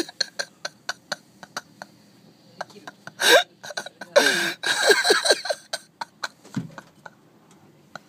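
A quick series of sharp clicks and knocks, then several short wordless vocal outbursts with swooping pitch from a person, and a dull thump near the end.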